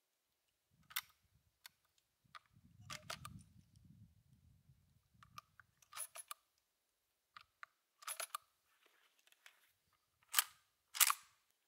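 Handling and loading of an Uberti 1873 Winchester lever-action rifle: scattered sharp metallic clicks in small groups, with a soft rumble of handling under the first half. It ends with two louder clacks about half a second apart as the lever is worked to chamber a round. No shot is fired.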